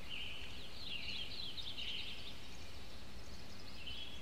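Birds singing: a steady run of high chirps and twitters, busiest in the first half, over a faint low hum.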